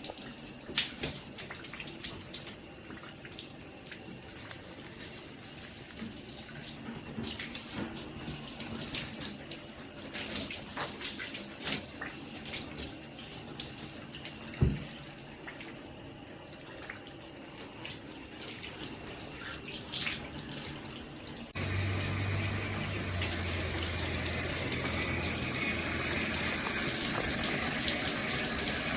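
Water from a sink faucet with a slip-on shower hose, splashing and trickling with scattered small clicks and knocks. About two-thirds through it changes abruptly to a steady, louder rush of running water with a low hum under it.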